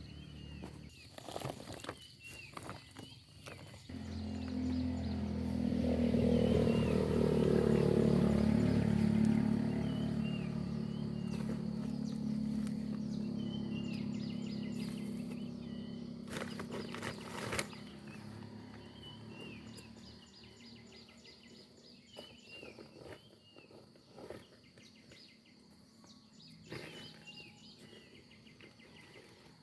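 Small birds chirping repeatedly. A low rumble swells up about four seconds in, is the loudest sound for several seconds, and fades away by about eighteen seconds, with a few clicks.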